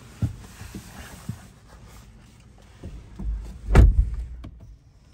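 A few light knocks, then a heavy car door shutting with a deep thump about four seconds in. After it the background hiss drops away, as the closed cabin shuts out the room.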